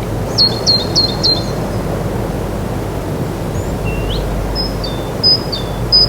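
Birds chirping: short high notes, each dropping sharply in pitch, a quick run of four about half a second in and a few more near the end, over a steady low rushing noise.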